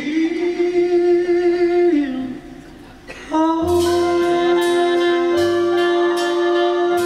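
A man singing a long held high note live into a microphone. The note tapers off about two seconds in. After a short lull, a backing track of piano and bass chords comes in under another long sustained note.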